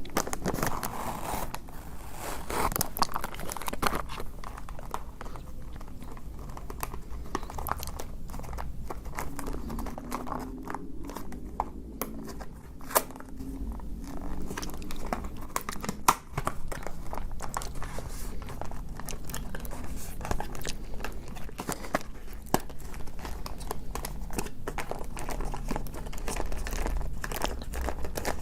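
Close-miked eating of chocolate-coated ice cream bars: a steady run of crackling, crinkling and crunching with many sharp clicks.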